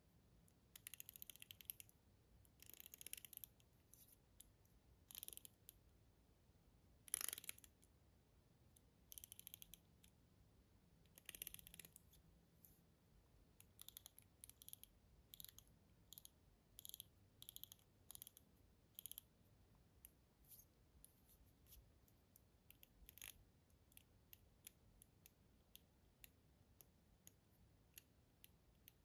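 Ratchet Ring fidget ring turned on the finger, its band giving quick runs of small, crisp ratchet clicks in short bursts with pauses between. The runs are longer and about two seconds apart at first, then shorter and more frequent through the second half.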